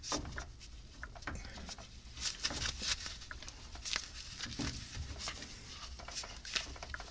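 Scattered light clicks and metal knocks of a bushing press and hand tools being handled and positioned on a suspension arm, over a faint low hum.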